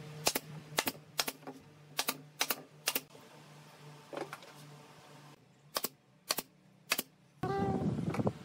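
Pneumatic brad nailer firing nails into pine boards: about ten sharp shots in quick groups of two or three. About a second before the end a louder steady noise takes over.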